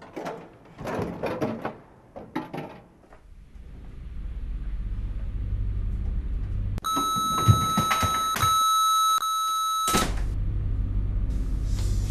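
Microwave oven in use. A few clicks and knocks, like the door and buttons, are followed by the low steady hum of the oven running. About seven seconds in, a single electronic beep sounds and holds for about three seconds, then the hum continues.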